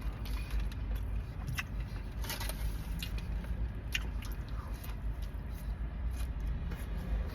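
A person chewing a burger close to the microphone, with a few short crisp crunches and mouth clicks, over a steady low rumble.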